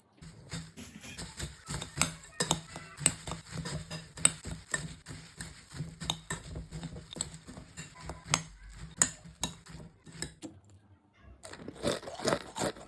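Kitchen utensils clicking and clattering in quick, irregular taps over a steady low hum, turning to a denser clatter near the end.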